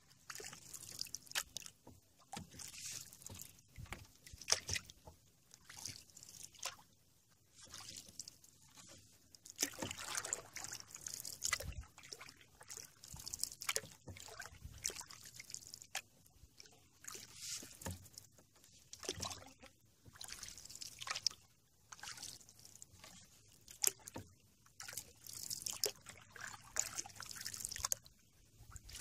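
Canoe paddle strokes: water splashing and trickling off the paddle blade in repeated bursts every couple of seconds, with an occasional low knock.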